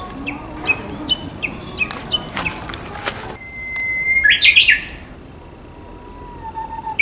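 Japanese bush warbler singing its "hoo-hokekyo" song: a long, steady whistled note about halfway through, breaking into a quick, loud flourish, then a lower held whistle near the end. Before it comes a run of short, repeated chirps, two or three a second.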